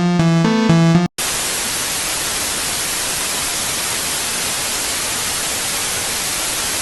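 Synthesizer music with a pulsing beat cuts off about a second in. After a brief silent gap, steady TV-style static hiss takes over.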